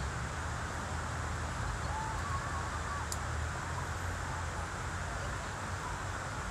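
Outdoor city-park ambience: a steady low rumble and hiss, with faint distant voices about two seconds in and one light click about three seconds in.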